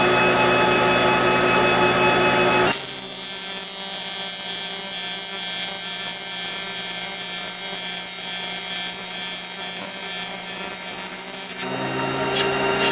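AC TIG welding arc on aluminum, a steady electrical buzz with hiss. About three seconds in, the sound changes abruptly to a thinner, higher hiss, and it switches back near the end.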